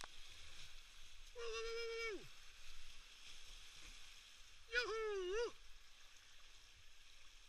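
Two long, high-pitched whoops of a person's voice, about three seconds apart, the first held steady and falling away at the end, the second wavering up and down, over the faint rush of whitewater.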